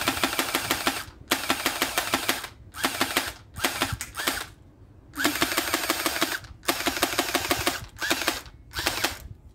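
Airsoft M4 rifle firing about eight bursts of rapid shots, each half a second to a second long, a fast string of sharp clicks over a whir from the gun's mechanism.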